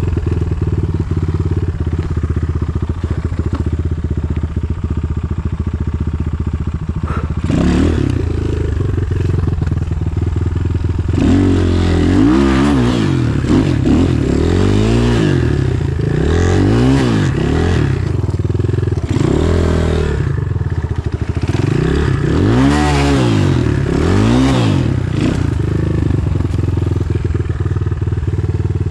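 Enduro motorcycle engine running steadily at first, then revving up and down again and again from about a third of the way in. The rider is fighting for grip with the rear wheel on an icy climb.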